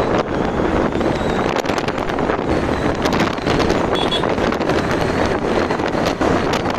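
Wind rushing over the microphone of a moving motorbike, a steady noisy rush broken by frequent gusty crackles, with the bike's road and engine noise underneath.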